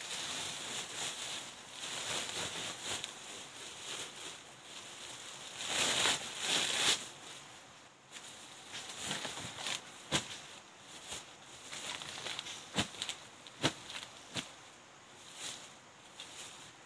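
Woven plastic sacks rustling and crinkling as they are handled and packed with black turmeric roots, louder about six seconds in, with several sharp clicks and knocks in the second half.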